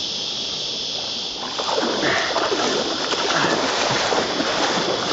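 Water splashing and sloshing close to a lilo (inflatable air mattress) as it is paddled along a river, starting about a second and a half in, over a steady high hiss.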